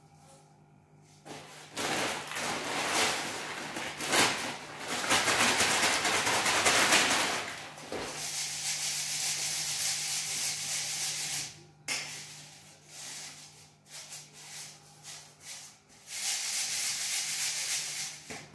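Dry grain rustling against steel as it is shaken in a steel sieve and stirred by hand in a wide steel pan. The sound comes in long stretches, loudest in the first half, breaks off briefly about twelve seconds in, and returns patchily with another loud stretch near the end.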